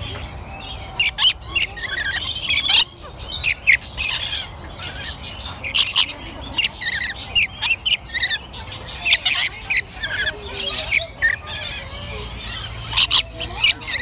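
Rainbow lorikeets screeching: many short, shrill calls in quick irregular bursts over a steady background chatter of more lorikeets.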